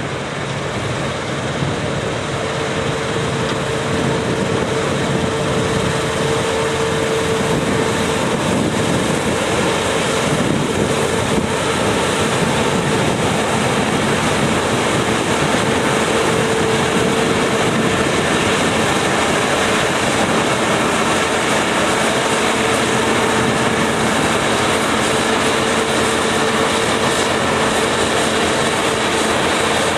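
Claas Lexion combine harvester running and cutting wheat close by: a loud, steady machine noise from its engine and threshing gear, with a steady whine running through it. It grows slightly louder over the first few seconds.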